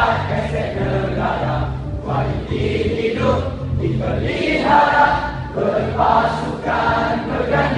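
A large choir singing over a musical accompaniment with held low bass notes that change every second or so.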